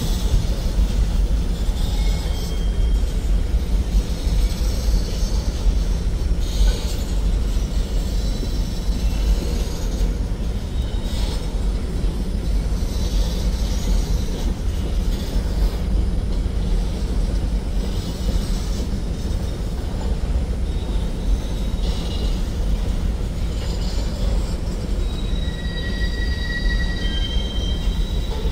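Freight cars of a Norfolk Southern manifest train rolling past, a steady rumble of steel wheels on rail with scattered clanks. Brief high-pitched wheel squeals come in near the end.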